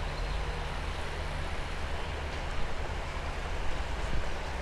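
Steady rushing of a shallow river running over rocks and riffles, with a low rumble beneath it.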